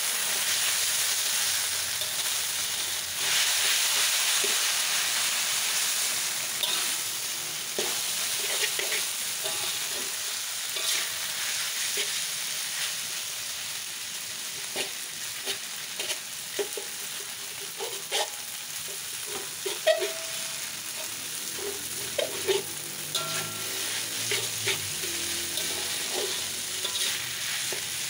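Noodles in sauce sizzling in a hot wok while a slotted metal spatula stirs and tosses them, with scattered clinks and scrapes of the spatula against the wok. The sizzle eases a little in the second half as the clinks become more frequent.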